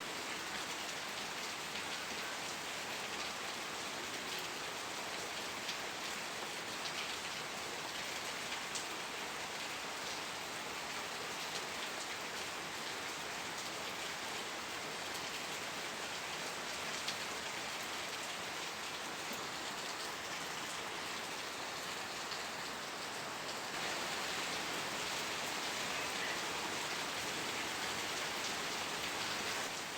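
Steady, even rain falling, with a few isolated sharp clicks; the rain grows slightly louder about 24 seconds in.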